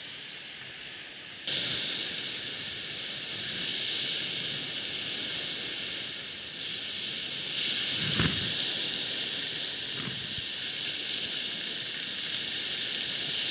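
Steady rushing beach noise of wind and surf, which gets suddenly louder about a second and a half in. A couple of brief dull knocks come around the middle.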